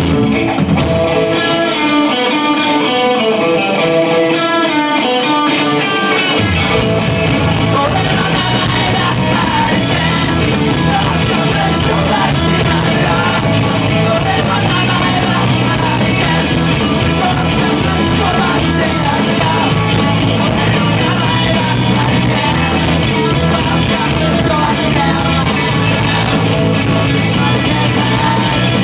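A rock band playing a punk/new wave song. About a second in, the bass and drums drop out, leaving a melodic part on its own. The full band comes back in about six and a half seconds in.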